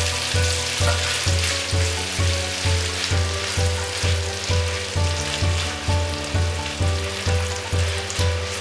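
Diced onion sizzling in hot oil in a pan while being stirred with a spatula. Under it runs background music with a steady bass beat of about two pulses a second.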